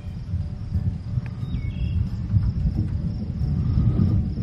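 Distant thunder rumbling low and unevenly, swelling slightly toward the end, over steady chirping of crickets.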